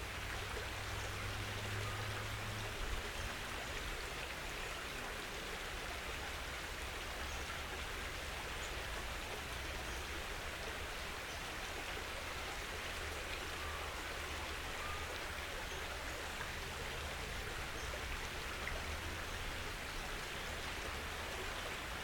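Steady, even hiss of creekside outdoor ambience, with a low rumble underneath.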